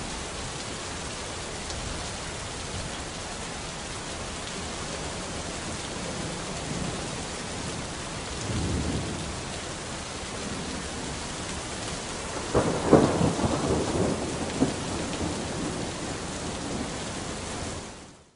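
Steady rain with thunder: a low rumble about halfway through, then a louder thunderclap and rolling rumble a few seconds later, the whole fading out at the end.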